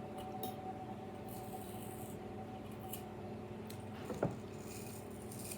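Faint rubbing and scraping of shrink wrap being peeled off a sublimated tumbler by hand, with a small tap about four seconds in. A steady low hum runs underneath.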